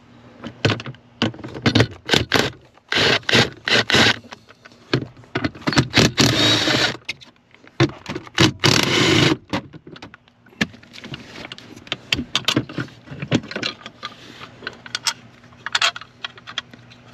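Craftsman cordless power tool with a 10 mm socket running in several short spurts of about a second each, backing out the 10 mm bolts that hold the gas pedal assembly to the floor. Between the spurts come clicks and scrapes of the socket, the bolts and the metal pedal bracket.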